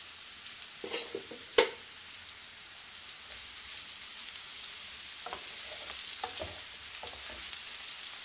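Sliced cardoncelli (king oyster) mushrooms sizzling steadily in hot olive oil in a frying pan, just added and starting to brown. There are two sharp knocks a second or so in, and a few light taps later as the pan is stirred.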